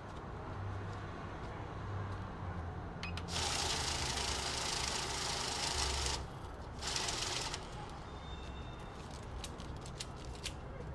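Safescan banknote counter feeding a stack of $100 bills through at speed: a fast fluttering whir of paper for about three seconds, then a shorter burst after a brief pause. Light clicks and paper rustles of the bills being handled come before and after.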